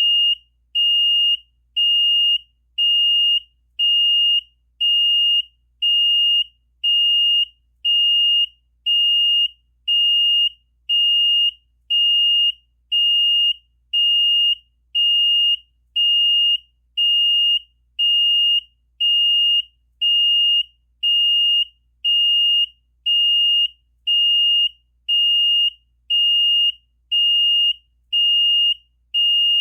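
Yong Yang (TYY) fire alarm control panel's buzzer sounding its intermittent tone: a single high beep repeating evenly about once a second. This intermittent pattern signals a line break, start-up or low-water condition, not a fire.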